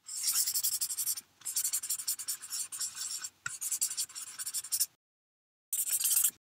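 Scribble sound effect of a pen scratching rapidly on paper, in quick strokes across three spells with brief breaks, then after about a second of silence a last short spell of scribbling near the end.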